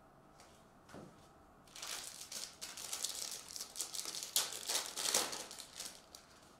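Foil wrapper of a Topps baseball card jumbo pack crinkling and crumpling in the hands as the pack is opened, in a dense crackly run of a few seconds starting about two seconds in. A single soft knock comes about a second in.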